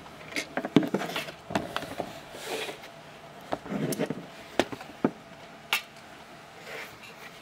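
Brass gasoline lighter being handled on a tabletop: a string of sharp metallic clicks, taps and short scrapes as it is turned over and set upright, the loudest knock about a second in.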